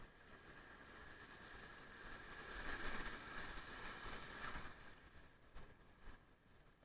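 Surf: a wave washing in, its rushing noise swelling about two seconds in and fading away again.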